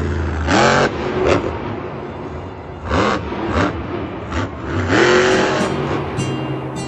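Monster truck engine blipped hard three times, each rev rising quickly in pitch, over a constant engine rumble. Music starts to come in near the end.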